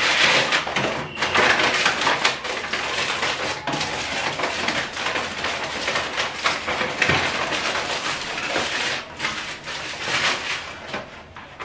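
A brown paper bag rustling, then aluminium foil crinkling, as a takeaway meal is unwrapped by hand; a dense crackle of small clicks that grows quieter toward the end.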